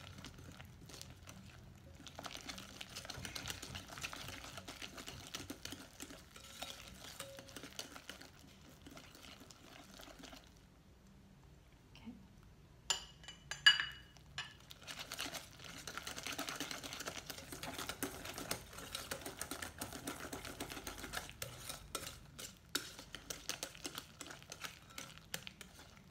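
Wire balloon whisk beating a thick coffee topping paste in a glass bowl: quick scraping and tapping of the wires against the glass. It goes quiet for a couple of seconds about halfway, then comes a single sharp ringing clink of metal on glass before the whisking resumes.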